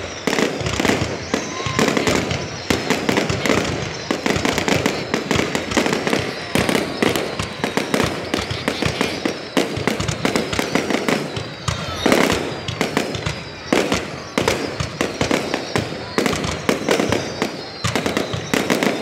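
Fireworks display: aerial shells bursting and crackling in rapid, continuous succession, with an especially loud bang about twelve seconds in.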